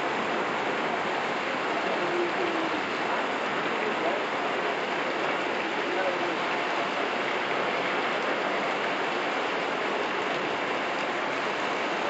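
Steady hiss of rain falling and rainwater running over a flooded street.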